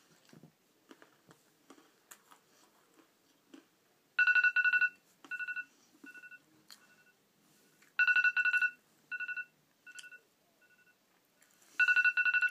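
Phone timer alarm going off about four seconds in, marking the end of a one-minute timed challenge: a repeating electronic beep pattern, each round a loud run of beeps followed by shorter, quieter beeps, starting over about every four seconds. Faint clicking comes before it.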